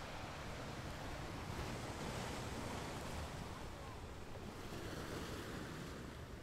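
Small waves breaking and washing up a sand-and-pebble shore, swelling louder about two seconds in and again about five seconds in, with wind buffeting the microphone.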